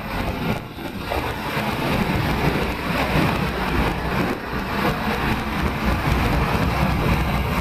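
Steady rushing wind and road noise on the microphone of a camera mounted outside a moving car, driving through traffic.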